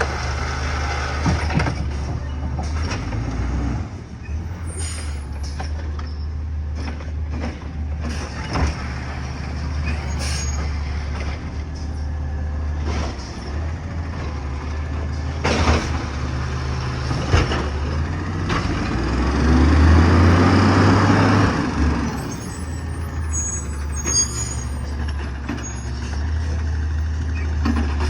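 A heavy truck's engine runs with a steady low drone, broken by scattered clunks and knocks. About two-thirds of the way through it grows louder for a few seconds, then settles back.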